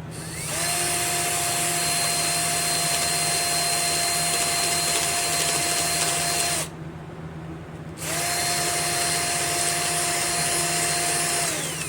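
An electric drill running in two spells: it spins up to a steady whine, runs about six seconds and stops, then starts again and runs about four seconds before winding down near the end.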